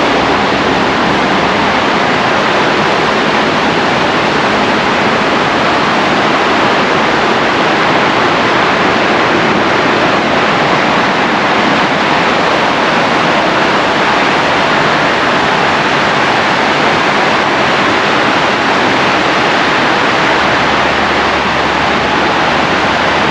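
Steady rush of Pocono Creek's rapids and small waterfall, running high after heavy rain.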